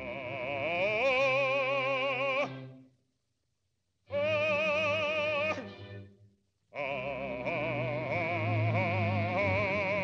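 Male operatic voice singing three long held notes with wide vibrato. The first slides up in pitch about a second in, the second ends with a drop, and the third is the longest.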